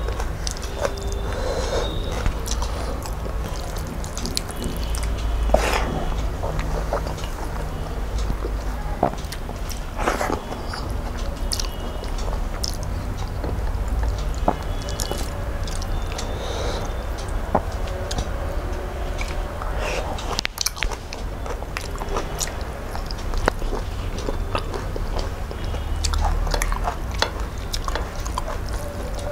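Close-miked eating sounds of rice and curry eaten by hand: chewing and biting, wet squishing of fingers kneading rice into gravy, and many scattered short clicks, over a steady low hum.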